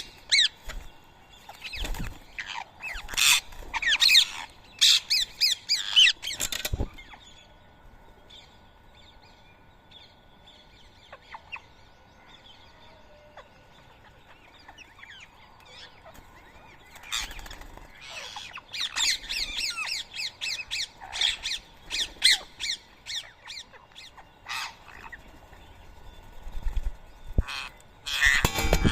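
Rose-ringed parakeets squawking with sharp, high calls: a burst of calls at the start, a lull with only faint chirps, then a second, longer run of calls in the second half.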